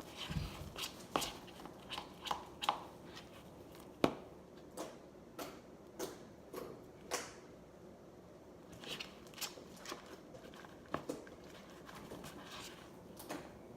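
Sticky glue-and-shaving-cream slime being mixed, giving irregular wet smacks, squelches and clicks, a few a second, now and then.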